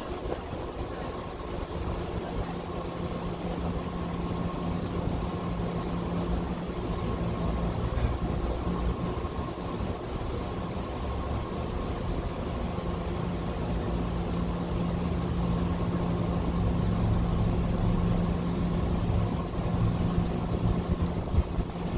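Steady low mechanical hum over a low rumble, swelling slightly louder in the second half.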